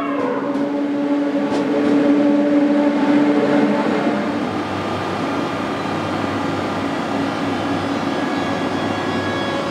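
Rhaetian Railway electric locomotive moving slowly past, its traction equipment giving a steady hum with several held tones, loudest about two to three seconds in.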